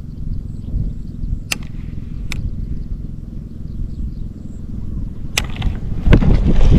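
Low rumble of wind on the microphone, with a few sharp clicks. Near the end comes a loud rushing swish as a baitcasting rod is swung overhead in a cast.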